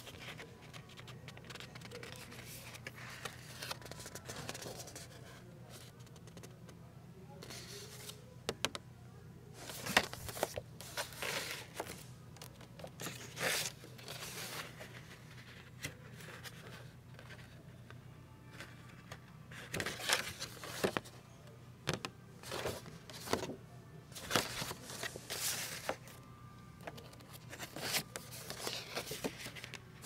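Paper greeting cards being drawn out of a store card rack, opened and slid back in: card stock and envelopes scraping and rustling in short, scattered bursts. A steady low hum runs underneath.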